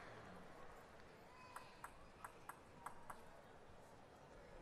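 Near silence with a handful of faint, light ticks about three a second, starting about a second and a half in: a plastic table tennis ball being bounced a few times before a serve.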